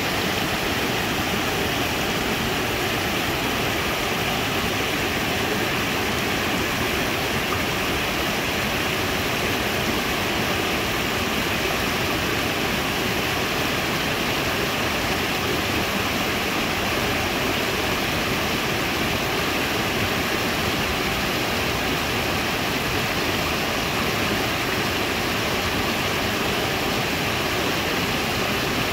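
Small waterfall spilling over a rock ledge into a pool: a steady rush of falling water.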